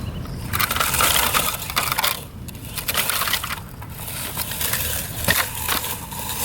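Plastic toy front loader's bucket and wheels scraping and crunching through dirt and small stones, in three stretches of gritty crackling with short pauses between.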